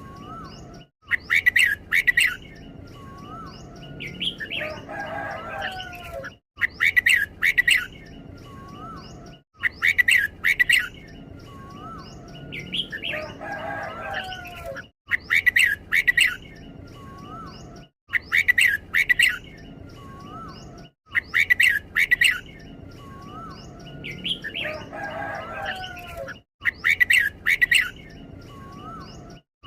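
Red-whiskered bulbul singing: short bright phrases repeated again and again every few seconds, with a softer warbling phrase in between, the doubled song of this bird.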